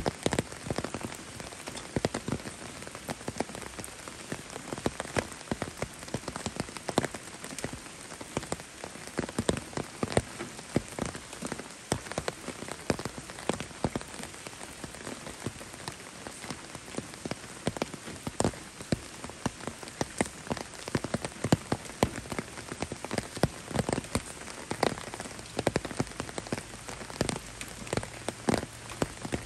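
Steady rain falling, with frequent sharp taps of drops landing close by.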